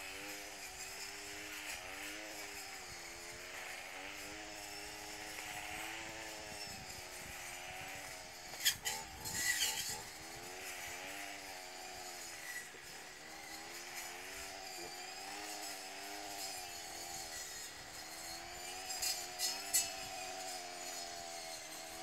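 Airport crash tender's engine running hard to drive its water cannon, its pitch wavering up and down every second or two, over the hiss of the water spray. A few brief sharp clicks come about midway and again near the end.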